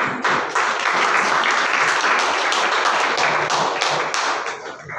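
Audience clapping: dense applause that breaks out suddenly and dies away near the end.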